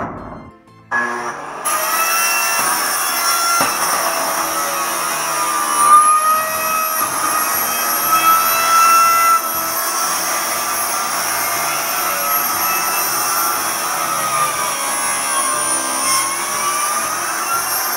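A knock right at the start, then from about a second in a corded circular saw runs steadily as it cuts along a ribbed metal roofing panel, its whine wavering a little in pitch under the load of the cut.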